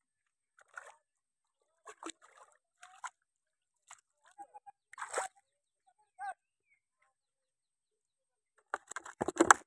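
A hooked fish splashing and thrashing at the water's surface in short bursts as it is pulled in on a bamboo hook-rod, loudest about five seconds in. Near the end comes a quick run of sharp knocks, the loudest sounds here.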